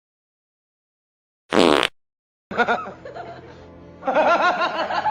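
A brief sharp noise, then laughing that starts about two and a half seconds in and gets louder near the end.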